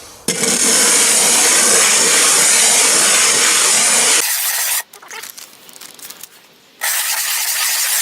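Natural sharpening stone being lapped on a glass plate with silicon carbide powder: a loud, steady, gritty grinding that sounds nasty. It stops about four seconds in, and a grinding noise starts again near the end.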